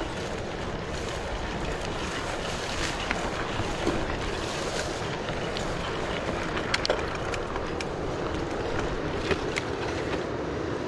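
Steady rushing wind noise on the microphone, with a few scattered crunches of footsteps on a dirt bush track, some of them in quick pairs.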